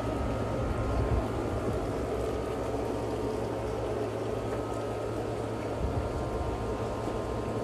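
Steady low mechanical hum and rumble with a faint constant high whine, unchanging throughout.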